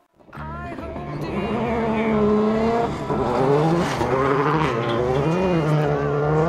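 Rally car engine revving hard through a gravel corner, its pitch holding, dropping and climbing again with the throttle, over the noise of tyres on loose gravel. It starts suddenly just after the beginning.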